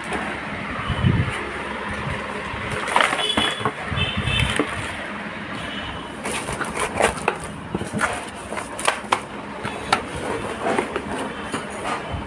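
Handling noise from a steel PC cabinet and its parts: a few dull thumps, then a run of sharp clicks and knocks of metal and plastic being moved and set against each other, over steady background noise.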